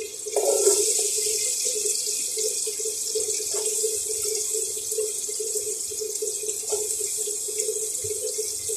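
Sliced onions sizzling in hot oil. The sizzle jumps up just after the start and then holds steady, over a faint steady hum.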